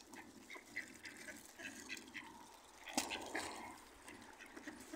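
A flock of mallards and geese calling at close range, with scattered short quacks and honks. A single sharp knock about three seconds in is the loudest sound.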